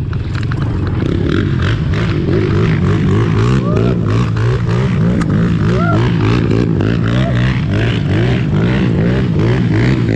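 Dirt bike engines running and revving, the pitch rising and falling again and again.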